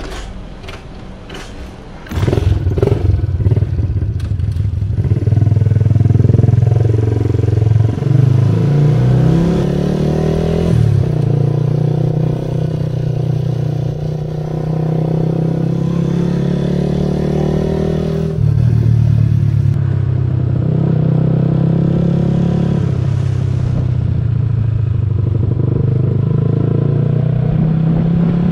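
A small scooter engine pulling away and riding along, heard through an action camera's microphone. A few light clicks come first, then the engine picks up sharply about two seconds in. Its note rises and falls with the throttle before settling into a steady run.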